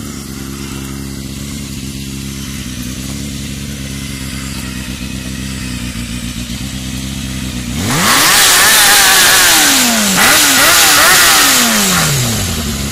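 Honda CBR250RR motorcycle engine and exhaust idling steadily, then revved twice from about eight seconds in, the pitch climbing and falling each time and dropping back toward idle near the end.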